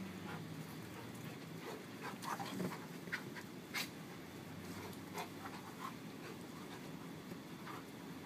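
Two dogs, a black dog and a small puppy, play-wrestling on a cushioned dog bed: panting and scuffling, with short clicks scattered irregularly through it.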